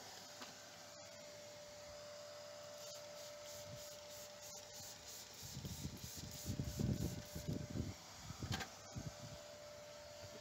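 Microfibre cloth rubbing across a leather car seat in irregular wiping strokes, strongest a little past halfway, over a faint steady hum.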